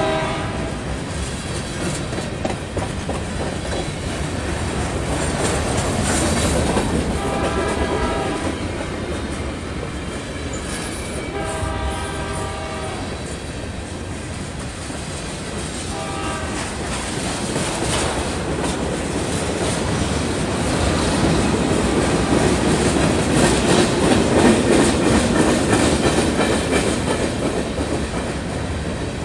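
Freight train of hopper cars rolling past, with a steady rumble and clickety-clack of wheels on the rails. The lead BNSF diesel locomotives, well down the track, sound their air horn: two longer blasts and then a short one.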